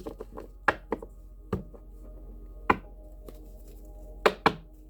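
Tarot cards being handled and set down on a table: a handful of sharp taps, two close together near the end, over soft background music with held tones.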